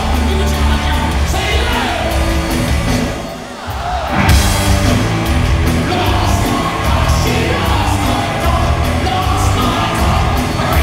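Live hard-rock band playing at full volume, with distorted electric guitars, drums and a singing voice, heard through the echo of a large hall. About three seconds in the band stops for a moment, then comes back in with a loud hit about a second later.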